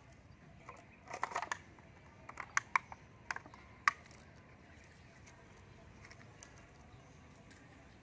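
A short run of sharp clicks and light taps, bunched between about one and four seconds in, the one near four seconds the loudest; after that only a faint background.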